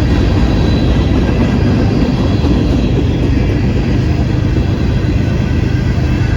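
Diesel freight train led by NS 8104 passing slowly up a grade, its locomotive engine giving a steady low drone over rolling rail noise.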